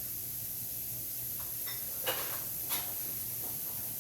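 Onions sizzling in a very hot pan with no oil, a steady hiss, with a couple of light clicks about two seconds in and again a little later.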